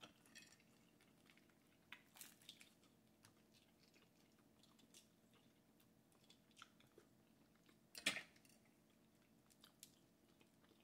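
Faint crackling of boiled crawfish shells being broken and peeled by hand, with quiet chewing; one louder crackle about eight seconds in.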